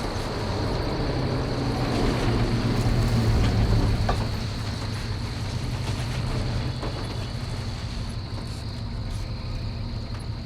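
Tow truck engine running, growing louder over the first few seconds, then easing to a steady lower level as it slows.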